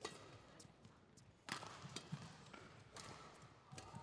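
Badminton rally: rackets striking the shuttlecock in sharp hits about every half second to a second, with players' footsteps on the court and a short shoe squeak near the end.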